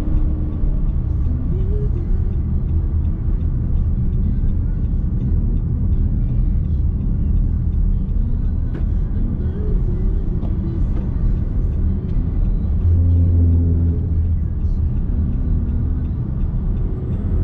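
Steady road and tyre rumble heard inside the cabin of a moving Nissan X-Trail hybrid, swelling briefly about thirteen seconds in, with faint talk underneath.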